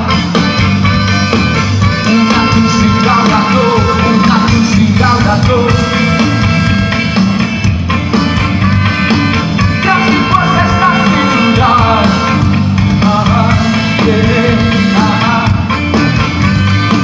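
Ska-rock band playing live at full volume: drums and bass driving a steady beat, with melodic lines over them.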